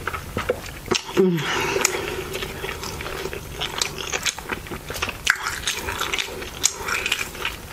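Close-miked chewing and wet mouth sounds of a person eating a mouthful of burrito, with frequent small clicks and smacks. There is a brief voiced hum about a second in.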